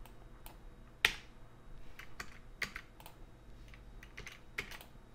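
Several irregular clicks from a computer keyboard and mouse, the sharpest about a second in: keyframes being selected on an editing timeline and removed with the Delete key.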